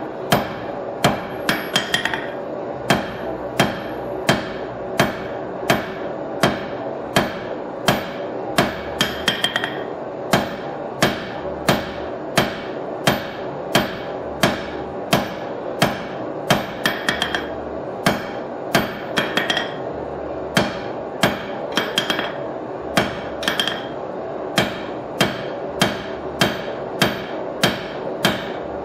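Hand hammer forging red-hot steel on an anvil to shape a knife blade: steady, even blows about two a second, a few followed by a quick bounce and a brighter ring.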